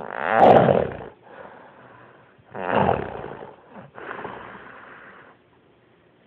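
A person snoring loudly: two harsh, rattling snores about two and a half seconds apart, each followed by a quieter, longer breath.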